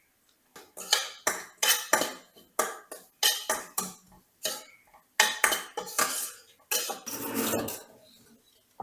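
Kitchen dishes and metal utensils clattering: a quick, uneven run of sharp clinks and knocks, ending in a denser rattle about a second long.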